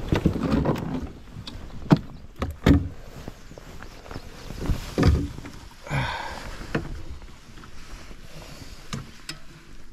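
Handling noise of a northern pike being laid out to be measured in a metal boat: a few sharp knocks and thuds against the hull and a cooler, with rustling in between. The loudest knocks come about two seconds in and just under three seconds in.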